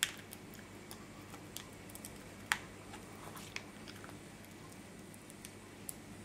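Faint, scattered small clicks and taps from foam adhesive pop dots being peeled off their backing sheet and pressed onto a paper card, with one sharper click about two and a half seconds in.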